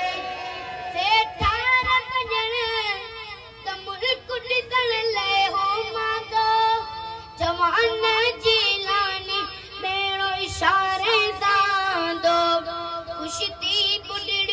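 A boy singing a manqabat, a Sufi devotional song, in Sindhi into a microphone over a loudspeaker. He holds long notes that waver in pitch and breaks them with quick ornamental runs.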